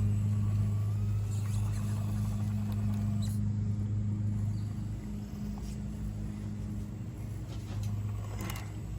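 Axial SCX24 micro RC crawler's electric motor and drivetrain running with a steady low hum as it crawls over rock. The hum drops back partway through and picks up again near the end. There are light clicks and a brief scrape of tyres or chassis on the rock about eight and a half seconds in.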